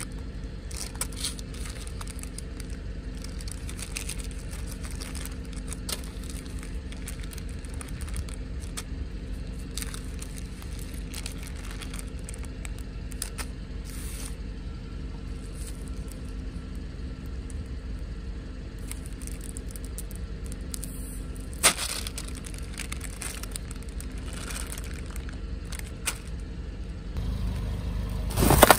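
A car engine idling steadily, with the crinkle and click of plastic piping bags and water beads being handled. Near the end a car tyre rolls onto a foil balloon, which bursts with a loud bang.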